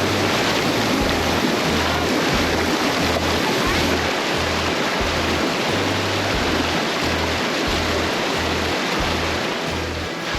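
Creek running high with spring runoff, a steady rushing roar of water, with background music's bass line pulsing in an even beat underneath.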